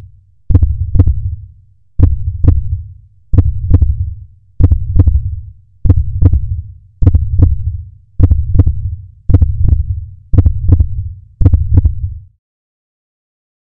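Heartbeat sound effect: paired lub-dub thumps repeating steadily a little more than once a second, about ten beats, stopping shortly before the end.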